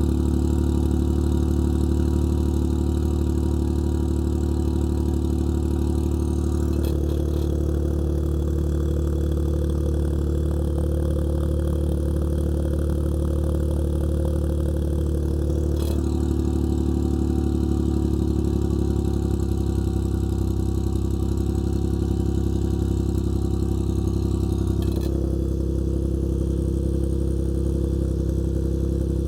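Engine idling steadily through a Kakimoto Kai aftermarket exhaust muffler fitted for an SIS002 inner silencer. The exhaust note changes abruptly three times, each with a short click, about 7, 16 and 25 seconds in.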